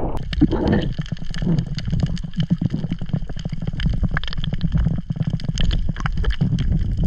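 Underwater sound through a camera's waterproof housing: a steady low rumble of moving water with many sharp crackling clicks.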